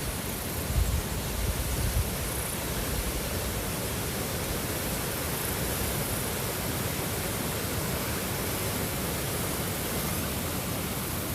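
Steady rushing water, an even hiss across all pitches, with a few low rumbles in the first two seconds.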